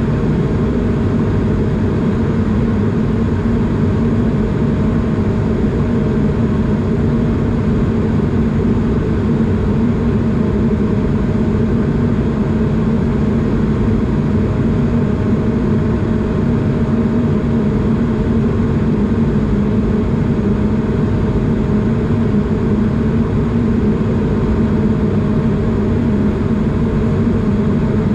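Steady cabin noise inside an Airbus A220 in flight: the drone of its Pratt & Whitney PW1500G geared turbofan engines and rushing air, with a low hum and a faint steady whine, unchanging throughout.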